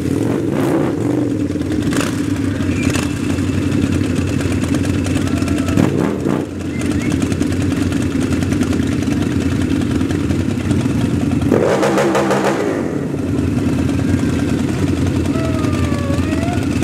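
Several custom V-twin chopper and cruiser motorcycles idling and rolling off at low speed with a steady deep rumble. One engine is revved hard once, about twelve seconds in.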